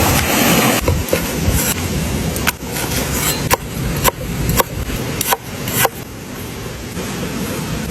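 About eight sharp chopping strikes on wood, unevenly spaced half a second to a second apart, over a steady rush of running water.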